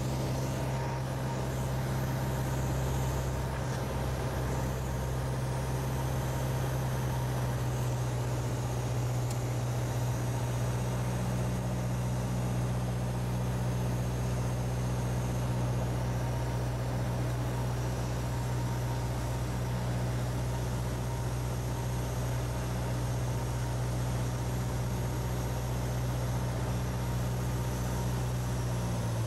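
Piper PA-28's piston engine and propeller running at steady power in flight, heard as a constant low drone inside the cockpit.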